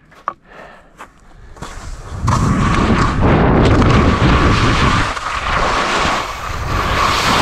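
Skis sliding and scraping down a steep spring-snow slope at speed, with wind buffeting the camera's microphone. The start is quiet with a few sharp clicks, then a loud steady rush begins about two seconds in.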